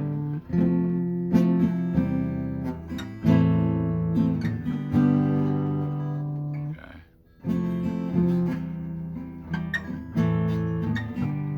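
Acoustic guitar strumming chords, with a brief break about seven seconds in before the strumming resumes.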